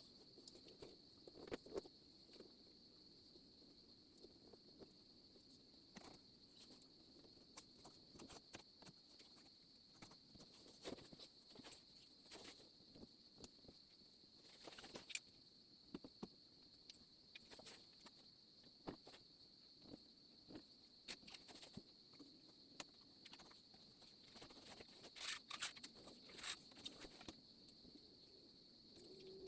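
Faint, irregular clicks and ticks of a screen spline roller pressing the rubber spline and new mesh into the channel of a patio door screen frame, over a steady faint high-pitched tone.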